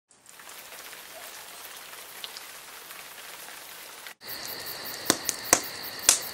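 Steady rain falling for about four seconds. After a brief break, a wood fire burns in a stove, giving several sharp crackling pops, with a steady high tone behind it.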